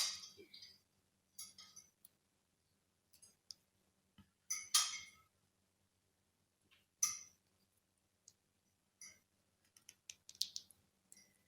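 Sparse light clicks and clinks of small repair tools and parts being handled during a smartwatch screen repair, one every second or two, with a quick run of clicks near the end.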